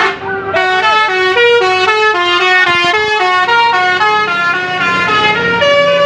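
Tour bus's telolet horn, a multi-tone electric horn, playing a fast tune of short notes that step up and down in pitch, with a longer held note near the end.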